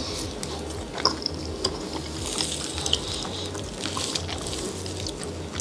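A spoon scraping and digging at a frozen cheesecake dessert cup, with scattered small clicks and taps.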